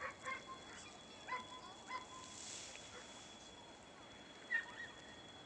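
A handful of short, faint animal calls, one at a time, the loudest about four and a half seconds in, over a thin steady high-pitched whine.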